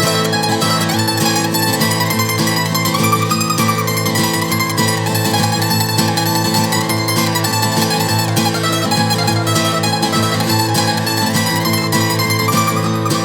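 Instrumental break of a folk-style song: acoustic plucked and strummed string instruments playing without singing.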